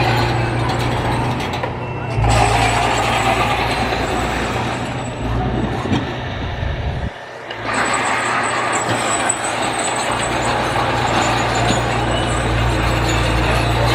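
Heavy construction machine's engine running steadily under load, with a short drop in level about halfway through.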